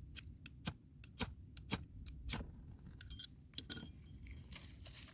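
A series of light clicks and taps from small hard objects being handled, with a short ringing jingle like keys or glass about three and a half seconds in.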